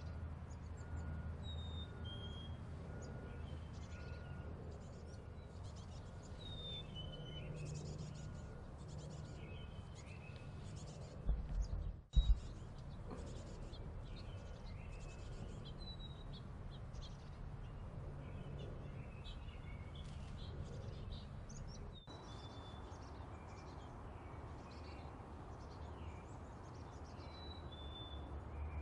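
Black-capped chickadees calling: scattered short high chirps and quick falling notes over a low background rumble. Near the middle come a couple of loud, low thumps.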